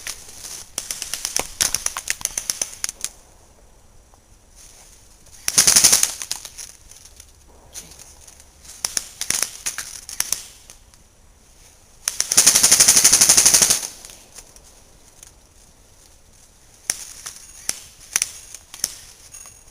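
Airsoft guns firing in bursts of rapid shots, with pauses between volleys. The loudest is one long sustained full-auto string of about a second and a half, about twelve seconds in. Scattered single shots and short strings come near the end.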